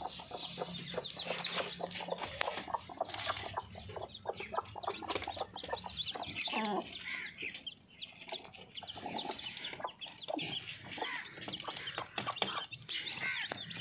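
Chicks peeping in many short, high cheeps, with an aseel hen clucking among them as the brood feeds on grain.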